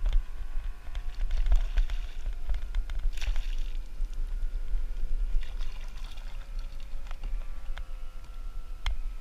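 Water sloshing and trickling around a plastic kayak, with scattered clicks and knocks as fishing gear is handled, and a short rustling splash about three seconds in.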